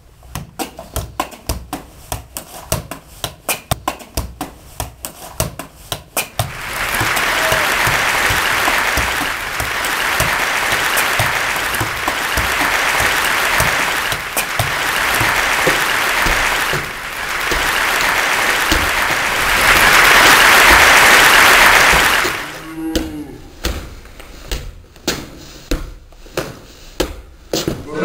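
A football is kicked up repeatedly off a foot in keepy-uppies, giving a quick series of thuds. From about six seconds in, loud crowd applause rises and falls in several swells for around sixteen seconds, then stops and the thuds carry on.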